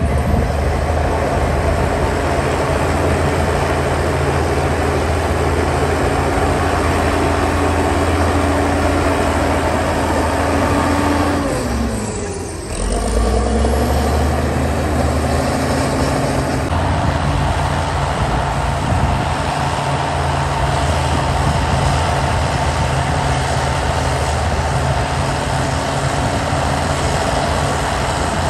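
Heavy diesel engine of earthmoving machinery running steadily. About twelve seconds in, its speed drops sharply, then climbs back up.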